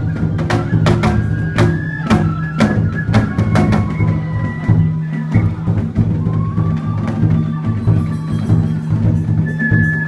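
Music with rapid clacking percussion and drums under a low steady drone, and a flute playing long, slightly wavering high notes.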